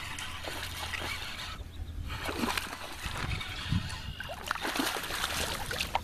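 Water splashing and sloshing as a hooked fish thrashes at the surface close to the kayak, with a run of short, irregular splashes.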